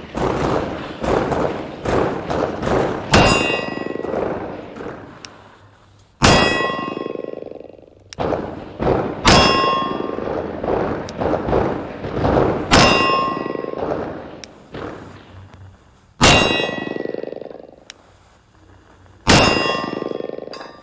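Steel target plate hit by 9mm rounds from a 1911 pistol: six sharp hits about three seconds apart, each a loud clang that rings on and dies away.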